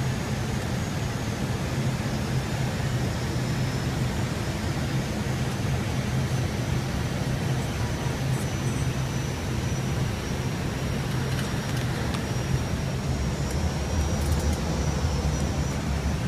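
Steady flight-deck noise of an Airbus A319 on final approach: rushing air and engine hum, with a faint high whine above it. The low hum grows a little stronger near the end.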